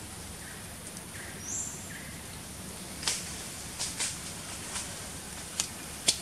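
Forest ambience: a steady high-pitched hiss, a few short bird chirps in the first two seconds, then a scatter of sharp clicks and snaps, the loudest just before the end.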